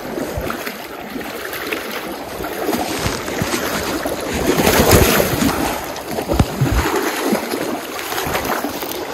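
Rushing, splashing river water, loudest about five seconds in, with a few dull bumps and rubbing of something against the microphone.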